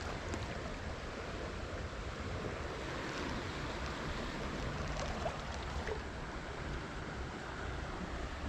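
Steady rush of a small stream's running water, with gusting wind rumbling on the microphone and a few faint clicks.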